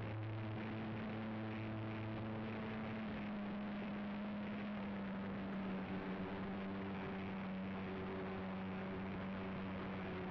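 Electric motor and propeller of a foam RC biplane, heard through a camera mounted on the plane: a steady low hum mixed with airflow noise, its pitch stepping slightly a few times.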